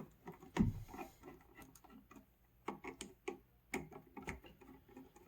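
Small irregular clicks and taps, with a soft knock about half a second in, as the wires are disconnected from an old single-pole light switch.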